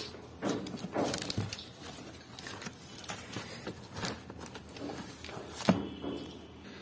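Cardboard flaps and plastic wrap rustling and crinkling as a packed dinner set is handled inside its carton, with scattered light knocks.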